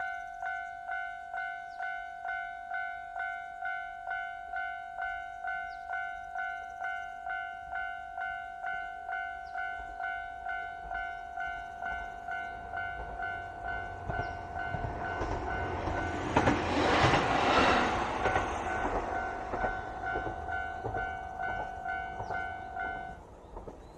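Japanese level-crossing warning bell ringing in a steady rhythm, about three rings every two seconds. A JR Hokkaido H100 (DECMO) diesel-electric railcar rumbles through the crossing, loudest a little past the middle, then fades away. The bell stops about a second before the end, once the train has cleared.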